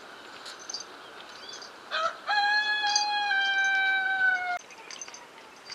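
A rooster crowing once: a short rising note about two seconds in, then a long loud held note that sags slightly in pitch and cuts off sharply.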